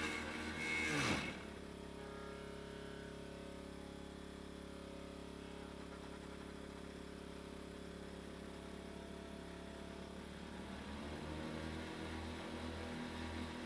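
Water-pump electric motor of a homemade vegetable chopper with a grass-cutter blade running. About a second in a louder burst of cutting comes as the motor's hum drops sharply in pitch, then it runs steadily at the lower speed, and near the end its pitch climbs back up as it speeds up again.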